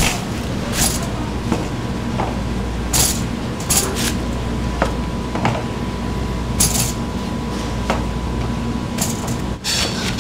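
Kitchen clatter: about nine sharp clinks and knocks of hard items against dishes and pans at irregular intervals, over a steady low hum.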